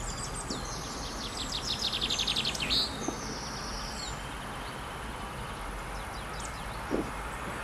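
Songbirds chirping, with one bird giving a fast trill of rapidly repeated high notes for a couple of seconds, over a steady background hiss.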